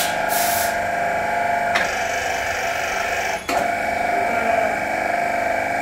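Electric-motor hydraulic pump of a 200 mm HDPE butt-fusion welding machine running with a steady whine as it drives the clamp carriage, with short breaks about two and three and a half seconds in.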